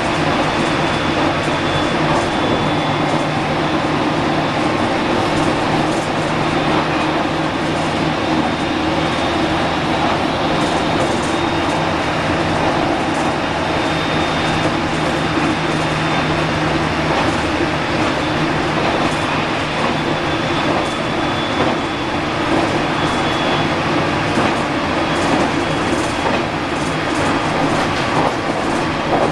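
JR Kyushu 815 series electric multiple unit running at speed, heard from inside the train: a steady rumble of wheels on rail with light rail-joint clicking over a low hum, and a faint high tone that comes and goes.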